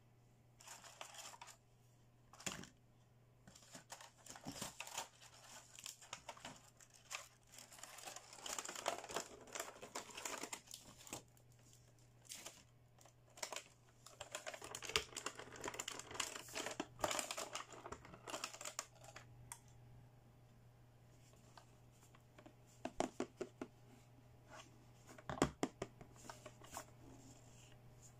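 Quiet handling of small hard plastic toy beauty-set pieces and their plastic case: light clicks and taps as pieces are moved and set down. Long stretches of crinkling and rustling of clear plastic packaging run mostly through the middle, and a few sharper clicks come near the end.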